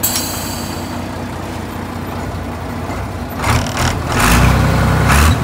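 Compact tractor's diesel engine running at a steady low idle, then getting louder in two surges from about three and a half seconds in.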